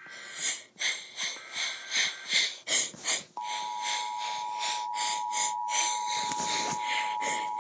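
Emergency Alert System tones: short bursts of the SAME header's data tones, then, about three seconds in, the steady two-tone EAS attention signal starts suddenly and holds.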